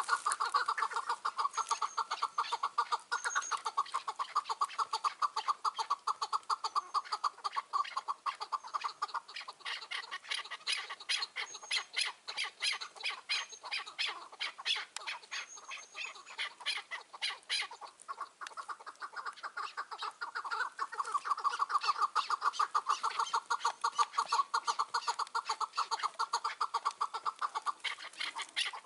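Chukar partridge calling in a fast, unbroken run of short clucking notes. For a stretch in the middle the notes turn higher and sharper.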